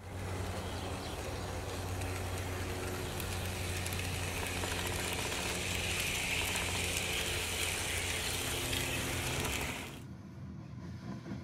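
Model railroad train running on its track: a steady low motor hum with a rattle of wheels and cars, turning quieter about ten seconds in.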